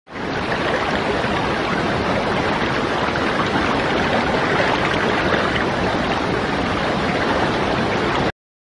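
Steady rushing-water sound effect that cuts off suddenly near the end.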